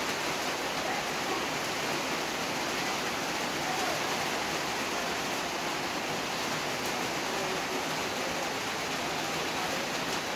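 Steady rushing hiss from a large pan of milk heating on a stove burner.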